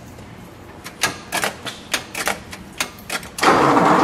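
A run of irregular sharp clicks, then about three and a half seconds in, the 1938 Packard Super Eight's L-head inline eight-cylinder engine cranks and fires with a sudden loud rush, the loudest sound here.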